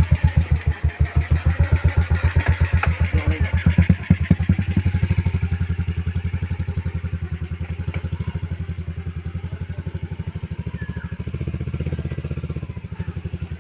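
A vehicle's engine running at low speed, firing in an even, steady beat of distinct pulses. It is a little louder in the first few seconds than later on.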